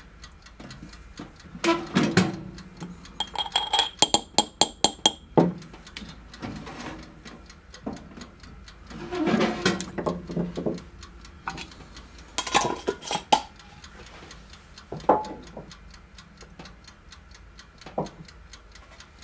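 Steady mechanical ticking, with clinks, knocks and clatters of tools being handled on a wooden workbench: pliers set down and a glass jar of coating powder moved. A rapid run of clicks comes about three to five seconds in.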